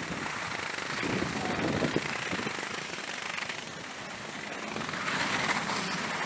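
Riding a surface ski drag lift: a steady, rough rattling and scraping noise from the moving lift, which grows louder about a second in and again near the end.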